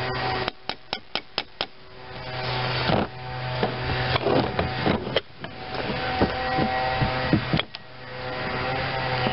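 A string of about six quick light hammer taps on a Delco-Remy starter-generator's metal end housing, about four a second, to knock it loose. Then come scraping and knocking of metal parts as the housing is worked apart, with one sharp knock near the end. A steady low hum comes and goes underneath.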